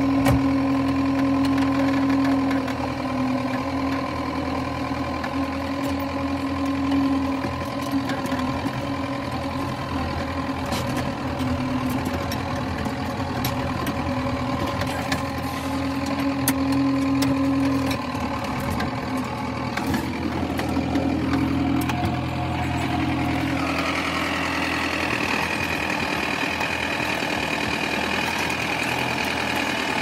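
New Holland TD 5.90 tractor's diesel engine running steadily, heard from inside the cab, its note shifting about two-thirds of the way through as a higher whine joins in.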